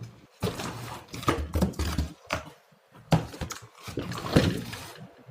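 Irregular knocks and clatters of kitchen things being handled, in two stretches with a short lull between them.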